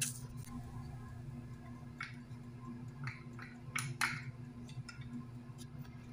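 A few short clicks and clinks of kitchenware against a glass mixing bowl, one at the start and the rest between about two and four seconds in, over a steady low hum.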